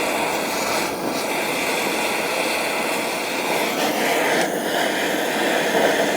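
Butane blowtorch flame burning with a steady hiss while it heats a seized bicycle crank to expand it so it will come off the spindle.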